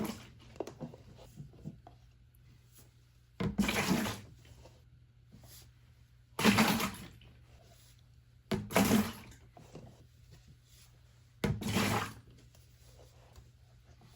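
Water splashing in short pours, four times about every two to three seconds, with a faint trickle between: standing water being drained from a front-load washing machine's emergency drain hose into a cup and tipped into a bucket, because the clogged drain filter keeps the machine from draining.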